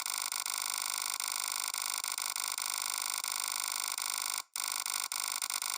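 A steady, harsh electronic buzz with many high overtones, cutting out for an instant about four and a half seconds in and then carrying on.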